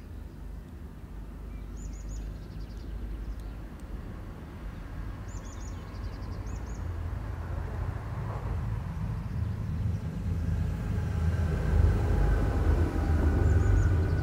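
A low rumble growing steadily louder, with steady tones entering over the last few seconds, as a vehicle approaches. A small bird sings short high chirping phrases every few seconds.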